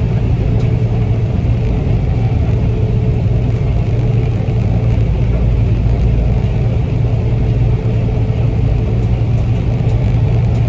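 Combine harvester running steadily while harvesting soybeans, heard from inside the cab: a steady low drone of engine and threshing machinery.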